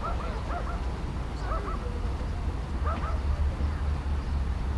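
Short animal calls in quick groups of two or three, coming three times, over a low steady rumble.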